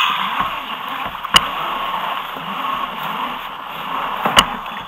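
Steady rush of water and wind around a sit-on-top kayak, with two sharp knocks, one about a second in and one near the end.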